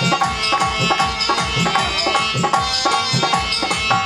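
Instrumental break in live rasiya folk music: a hand drum plays a fast, even rhythm under a steady held melody line.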